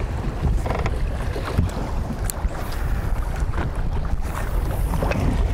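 Wind buffeting the microphone over choppy open water, with a few knocks of waves against the aluminium boat's hull as it rocks in the rollers.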